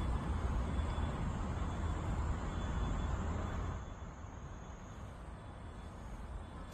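Steady outdoor background noise, a low rumble with hiss and no distinct events, dropping noticeably in level about four seconds in.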